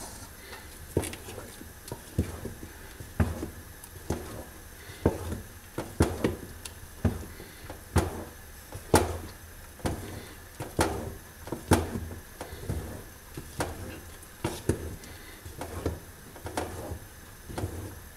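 Wooden spoon knocking and scraping against the side of an aluminium pot while thick ground sesame and hazelnut paste is stirred to work in melting butter. There is a sharp knock about once a second.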